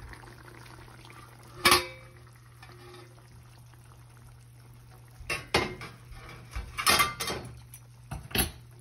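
Steel lid clanking against a pan as it is lifted off and set aside: one sharp clank with a short ring about two seconds in, then several more metal clinks and clatters near the end. A steady low hum runs underneath.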